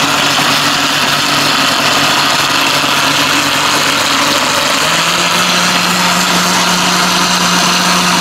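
Electric blender running, its blades crushing ice into a watermelon slush: a steady motor hum over a wash of blending noise. The motor's pitch steps up about five seconds in.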